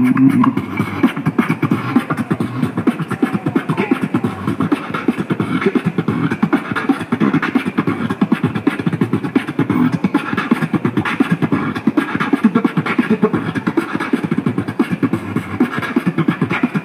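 Beatboxing into a handheld microphone: a fast, unbroken stream of percussive mouth sounds.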